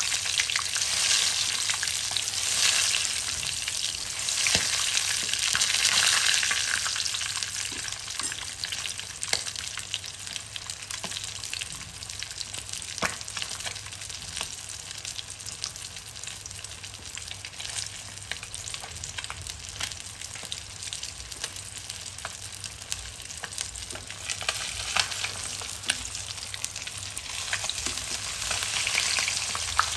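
Whole fish shallow-frying in hot oil in a nonstick pan: a steady sizzle with crackling and small pops. It is louder in the first several seconds and again near the end, when spatulas lift and turn the fish.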